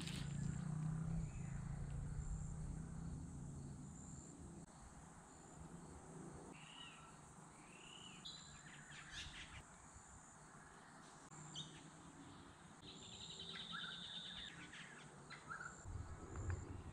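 Faint bush ambience with wild birds calling: a few short arched chirps about halfway through and a quick buzzy trill near the end, over a faint high-pitched chirp repeating every second or so. A low rumble fades out over the first few seconds.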